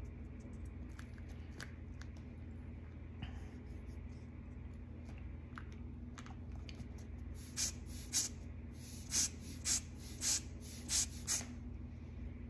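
Seven short hissing puffs of air over about four seconds, from a handheld rubber air blower bulb squeezed over wet alcohol ink on paper. Faint light taps of a brush on the paper come before them.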